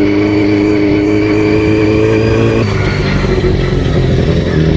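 Yamaha R6's inline-four engine running under way at steady revs, its pitch dropping suddenly about two and a half seconds in and then holding lower.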